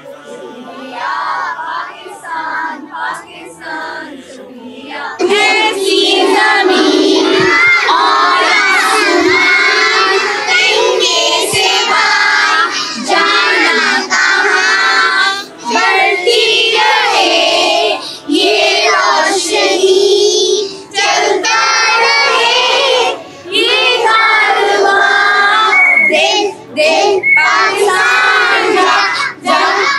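A group of young children singing and shouting together in unison. It is quieter and more broken for the first five seconds or so, then loud and nearly continuous with short pauses.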